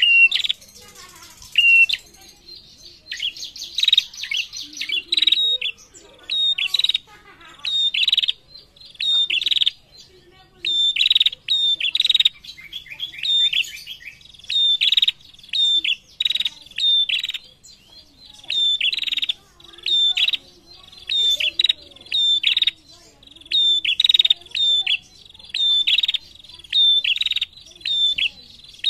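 Female prenjak, a small caged songbird, calling hard: sharp, high chips with a quick downward flick, fired off in bursts of several a second with short pauses between bursts, and a buzzy rattle and trill in the first few seconds.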